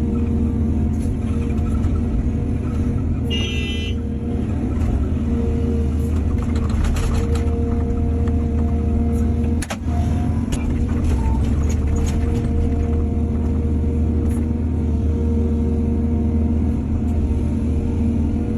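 Hydraulic excavator's diesel engine running steadily under working load, with scattered knocks and a brief high squeal about three seconds in.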